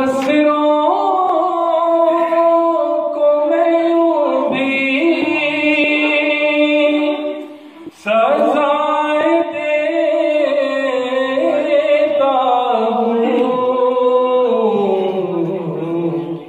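A man's voice singing a slow, melodic verse unaccompanied, holding long notes that glide between pitches. The voice stops briefly about eight seconds in, then resumes.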